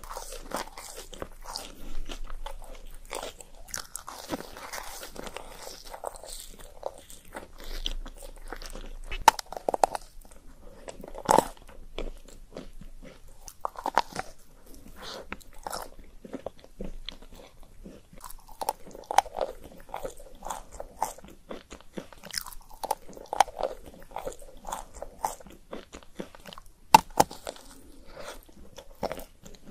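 Close-miked eating: bites crack through the thin chocolate shell of chocolate-coated treats, followed by chewing with soft wet mouth sounds. The cracks come at irregular intervals, with a few sharp, louder snaps, the sharpest near the end.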